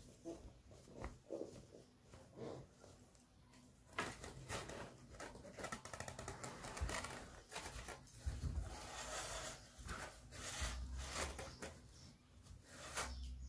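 Cloth rustling and light handling noises as a cotton fabric skirt is pulled and tucked around the foam sides of a wooden doll cradle. The rustles and scrapes are irregular and get busier from about four seconds in.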